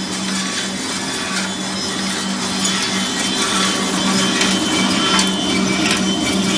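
Wood twin-chopstick shaping machine running: a steady electric-motor hum under the continuous clatter of wooden blanks passing through its cutters. Sharp clicks of chopsticks dropping into the steel output tray come more often in the second half.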